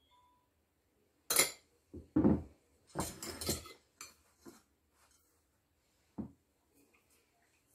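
Metal spoon and fork clinking and scraping against ceramic plates while egg and tuna are scooped out: several short clatters, most of them in the first half, with one more later on.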